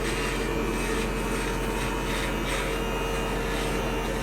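Manscaped Lawnmower 2.0 cordless body-hair trimmer buzzing steadily, with a rasping sound as it trims body hair. It is running on a battery that has not had its recommended five-hour first charge, which the user blames for it being less powerful than it should be.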